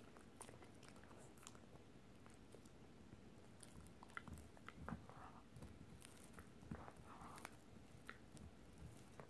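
Italian Greyhound gnawing and chewing a rawhide Dingo bone: faint, irregular clicks and crunches of teeth on rawhide, with a few louder crunches about four to seven seconds in.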